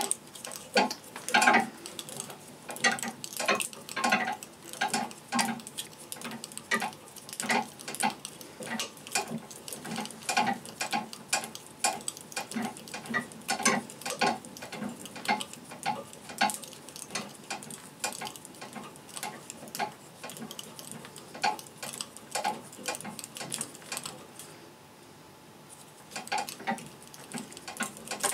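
Red bowstring serving tool being wound round and round the string on a string-making jig, making a run of irregular light clicks and knocks, about one or two a second, with a short pause near the end.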